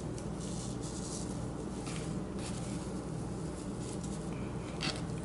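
Faint rustling and a few soft ticks of curled grosgrain ribbon being handled as needle and thread are worked through a korker bow, over a steady low hum.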